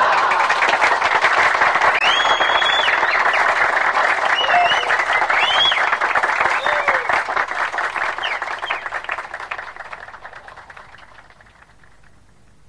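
Audience applauding, with a few high whistles in the first half, the clapping dying away about ten seconds in.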